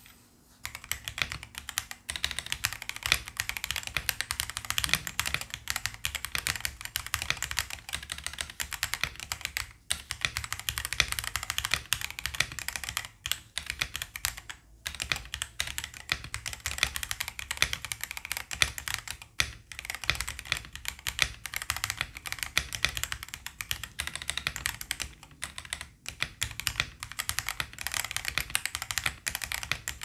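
Fast, steady typing on a stock Fuhlen H75S gasket-mount mechanical keyboard kit with a polycarbonate plate, full foam and Fuhlen Yellow Pro switches. A run of quick key clacks, broken by brief pauses every few seconds.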